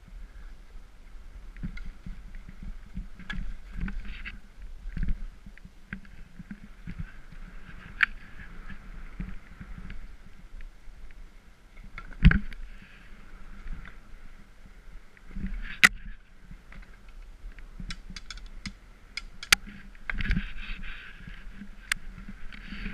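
Skis hissing through powder snow, with a low wind rumble on the microphone. Several sharp clicks and knocks break through, loudest about 12 and 16 seconds in.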